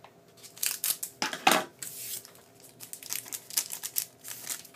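Foil trading-card pack being torn open by hand, the wrapper ripping and crinkling in a run of quick crackly bursts, loudest about a second and a half in.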